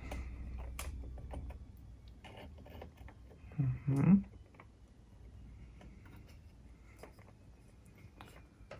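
Scattered light clicks and taps from small parts of a cassette deck's tape transport mechanism being handled and fitted by hand, with a brief vocal sound about four seconds in.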